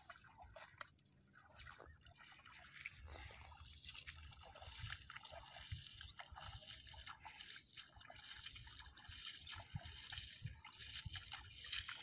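Faint sloshing and dripping water from a mesh keepnet of fish lifted out of a lake, with footsteps splashing through shallow flooded grass, getting louder toward the end.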